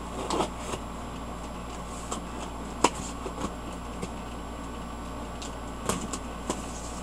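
A cardboard shipping box being opened by hand: scattered scrapes and clicks of the tape and cardboard being worked, with one sharp click about three seconds in and a few more handling noises near the end, over a steady low room hum.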